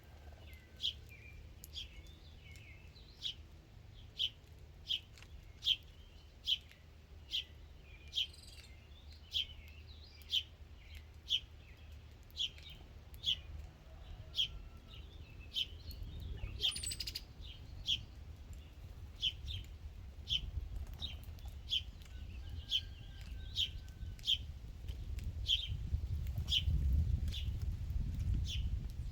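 A small bird repeating a single sharp chip note about once a second, over a low rumble that swells near the end.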